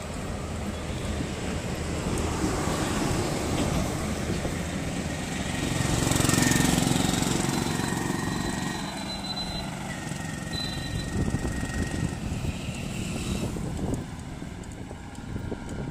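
Road traffic noise heard from a moving vehicle, swelling as a vehicle passes close by about six seconds in, then easing off.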